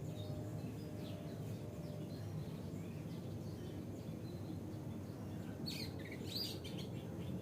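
Oriental magpie robin singing: faint scattered high notes, then a louder quick run of sharp, high notes about six seconds in, over a steady low background rumble.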